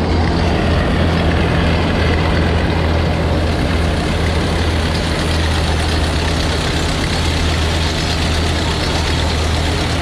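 Tractor engine running steadily while pulling a New Holland 848 round baler through a hay windrow, a constant low engine hum under the even mechanical noise of the baler working.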